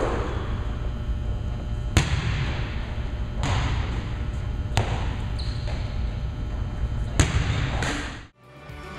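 Volleyball play in a large echoing gym: a ball being served and struck, with three sharp smacks about two, five and seven seconds in over a steady low room rumble. The sound cuts off suddenly shortly before the end.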